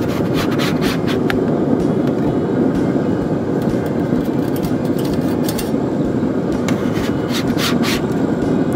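Metal spatula scraping and clicking against the pellet smoker's wire grate, a few times near the start and again near the end, over a steady rumbling noise.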